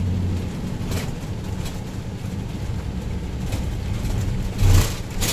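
Steady low engine and road rumble heard inside a vehicle cabin, with a brief thump near the end.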